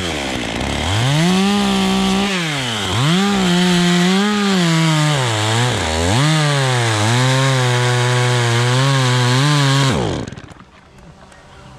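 Top-handle two-stroke chainsaw cutting through an Arizona cypress trunk. It revs up about a second in, dips in pitch twice as the throttle eases and is squeezed again, runs steady under load, then is let off near the end and falls away quickly.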